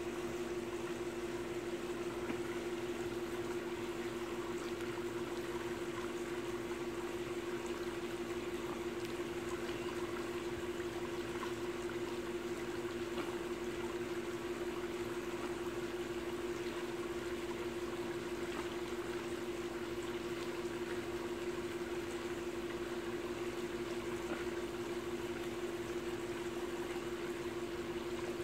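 Pool water splashing and trickling steadily, over a constant low hum.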